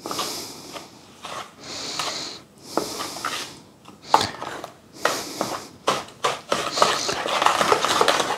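A wooden spoon stirring thick cream-cheese filling in a mixing bowl, with scraping and occasional sharp knocks against the bowl. The stirring turns faster and continuous about two seconds before the end.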